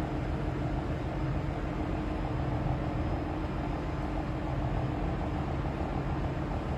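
Steady low machinery hum with a layer of hiss over it: the running background of a ship's bridge, engine vibration and ventilation, with a few low tones held steady.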